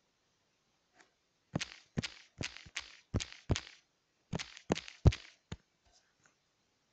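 Fingertip taps on a tablet's touchscreen keyboard while typing a short message: about a dozen quick, irregular taps over some four seconds.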